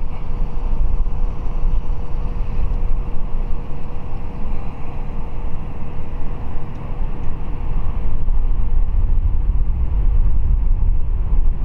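Heavy low wind rumble on the microphone, with a faint steady whine from a Minn Kota Ultrex trolling motor running at speed 6 as it drives the boat in circles for compass calibration.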